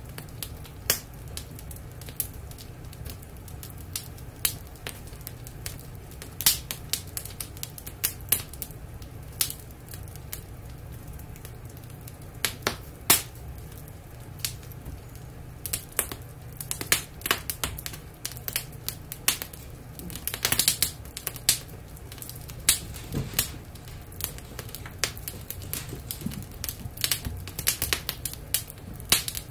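Wood fire crackling behind the closed glass door of a fireplace insert: irregular sharp pops and snaps, with a denser flurry about twenty seconds in, over a steady low rumble.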